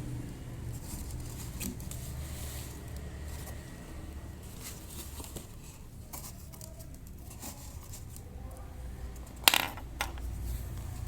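Light clicks and clatter of small hard objects being handled, with one sharp clack about nine and a half seconds in and a smaller one just after, over a low steady hum.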